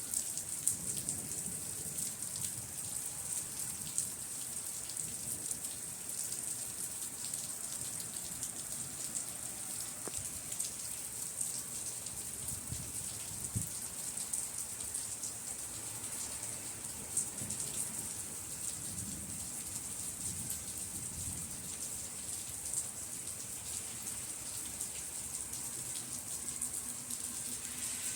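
Steady rain falling and pattering on surfaces: an even hiss scattered with the small ticks of individual drops.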